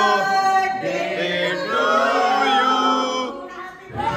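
A group of voices singing together, several notes held at once, with a brief break near the end.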